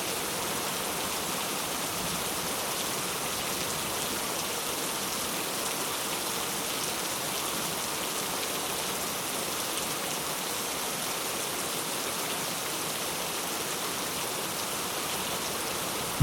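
Steady, even rainfall pattering on surfaces, with no thunder.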